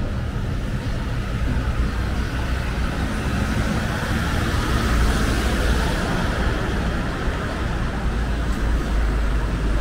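Street traffic: a steady rumble of vehicle engines and tyres, with a vehicle passing close by and louder around the middle.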